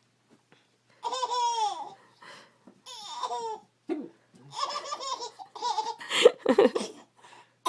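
A baby laughing in high-pitched squeals and giggles, in several bouts after a quiet first second, growing denser and louder in the second half.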